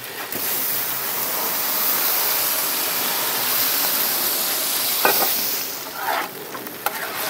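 Potatoes and butter sizzling loudly on a hot iron griddle plate, a steady steaming hiss that dies down about six seconds in.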